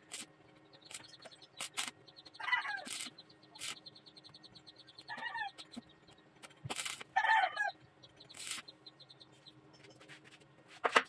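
Brief crackling bursts and sharp clicks from arc tack welds on a steel bar, a few scattered strikes with quiet between them. A bird calls three times in the background, a short call every two to three seconds.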